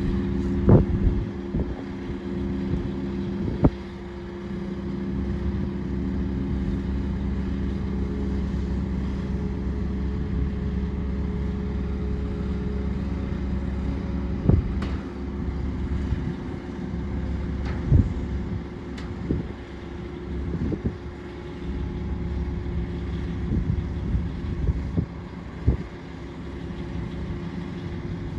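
An engine running steadily, with sharp knocks at irregular intervals.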